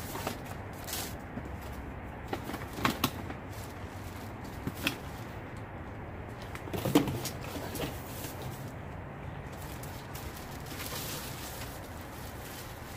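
Electronics and cords being handled while rummaging through a bag: scattered knocks and clicks over a steady hiss, the loudest clunk about seven seconds in.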